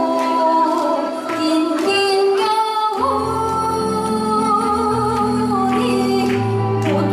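A woman singing a slow song into a handheld microphone over instrumental accompaniment, holding long notes; a low bass line comes in about three seconds in.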